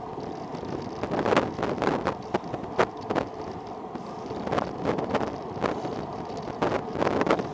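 Car driving along a rough, patched road: steady tyre and road noise with wind buffeting the microphone, broken by irregular short knocks and gusts.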